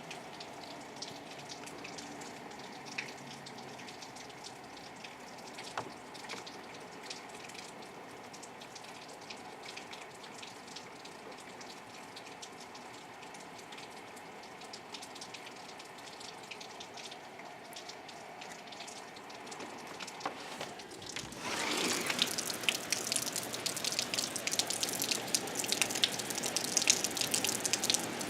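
Rain falling, with individual drops ticking and dripping, then abruptly becoming much louder and denser about three-quarters of the way through as a heavier burst of rain arrives.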